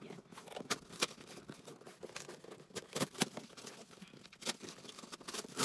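Cardboard shipping box being opened: packing tape cut and torn away, with irregular sharp scrapes and taps from the cardboard being handled.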